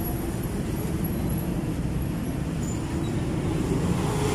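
Steady street traffic noise, with motorcycle engines running close by.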